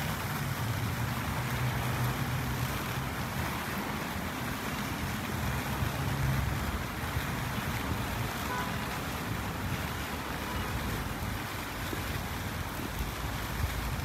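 Steady street ambience: a low rumble of traffic under an even wash of noise, with wind on the microphone.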